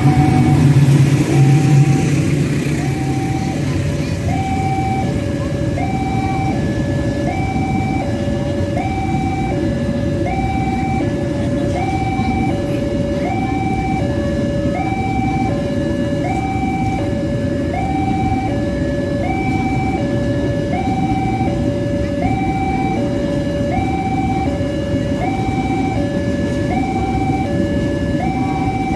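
Railway level-crossing warning alarm sounding a steady two-tone electronic 'teng-tong', switching between a higher and a lower tone about every 0.7 s. Under it a train passes close by: a diesel locomotive's heavy engine rumble is loudest in the first two seconds, then the carriages' steady wheel-on-rail rumble follows.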